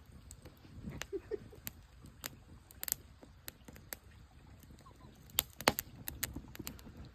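Campfire crackling and popping: irregular sharp pops, the loudest cluster about five and a half seconds in.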